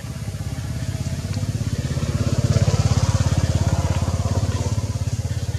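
A small engine running with a fast, even throb, growing louder to a peak about halfway through and then easing off slightly.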